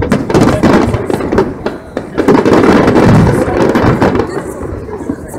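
Aerial firework shells bursting in a run of repeated bangs and crackles, with people's voices underneath.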